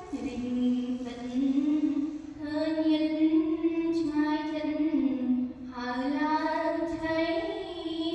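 A girl's voice chanting Khmer verse in the sung recitation style of the Bhujangalila meter, unaccompanied. Three long phrases, each drawn out on held notes that glide slowly up and down in pitch.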